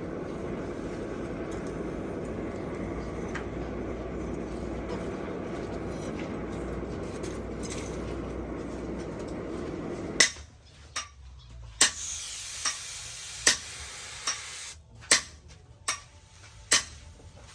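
A steady, even rushing noise that stops abruptly about ten seconds in. It is followed by a run of sharp, evenly spaced hammer blows on metal, about one every 0.8 seconds, typical of hand-forging a steel blade.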